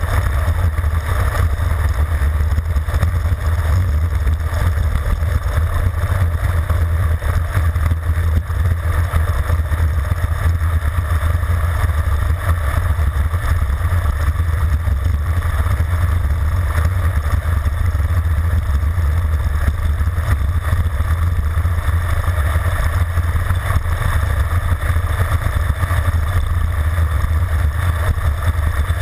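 Steady wind noise buffeting an action camera's microphone on a road bike descending at high speed, heard as a deep, even rumble with a rushing hiss over it, with no letup.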